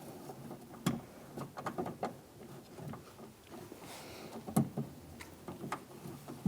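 Scattered light clicks and taps as the door handle's metal linkage rod is slid out of its plastic clip inside a car door, with a couple of louder knocks about a second in and about four and a half seconds in.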